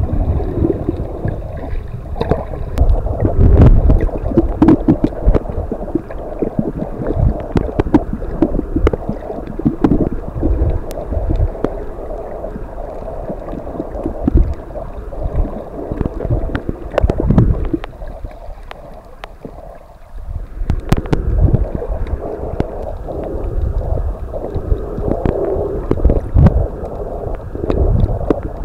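Muffled water sound recorded underwater by the snorkeler's camera: sloshing and gurgling with low rumbles and scattered sharp clicks, briefly quieter about two-thirds of the way in.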